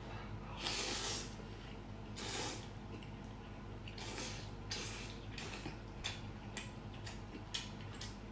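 Slurping of soup-soaked potato-starch noodles, two long slurps about a second and two and a half seconds in, then shorter slurps and quick wet clicks of eating.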